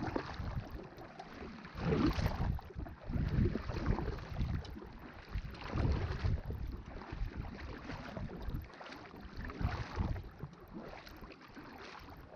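Kayak paddle strokes: the paddle dipping and pulling through the water in a steady rhythm, about one stroke every two seconds.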